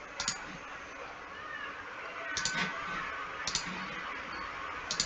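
A few scattered computer mouse clicks over a low room hiss, made while copying an object in a 3D modelling program.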